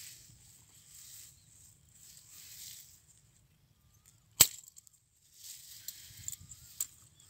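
A steel spring rat trap being handled on dry mud, with one sharp metallic snap about four seconds in, amid soft rustling.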